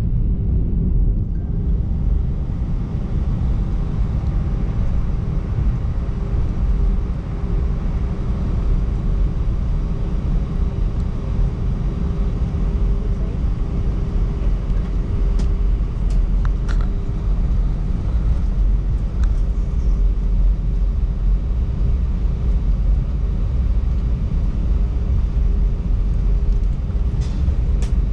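Jet airliner taxiing, heard from inside the cabin: a steady low rumble of the engines at idle and the wheels rolling over concrete, with a steady hum running through it and a few faint clicks about halfway through.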